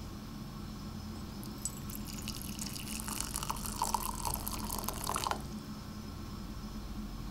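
Water pouring from an electric kettle into a ceramic mug, splashing for about four seconds with a ringing note joining in during the second half, then stopping abruptly.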